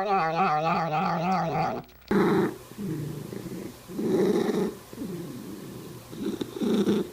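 A domestic cat's long, wavering yowl ends about two seconds in. A cat then makes a series of low, rough sounds in five short bursts.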